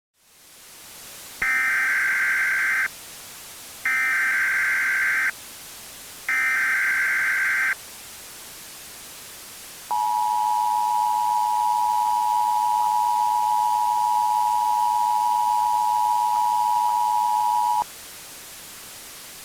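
Emergency Alert System tones opening a tornado warning: three identical bursts of the SAME digital header, each about a second and a half with a short pause between. Then the two-tone EAS attention signal is held for about eight seconds and cuts off sharply, all over a steady hiss.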